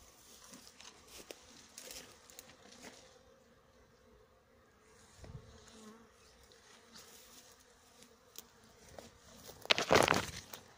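Bees buzzing faintly and steadily around blossoming lemon trees. Just before the end comes a short, loud rustle of leaves brushing close against the phone.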